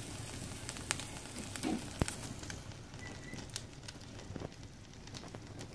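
Pork and onion frying in lard in an open clay cazuela over a wood fire: a quiet, steady sizzle with scattered sharp crackles.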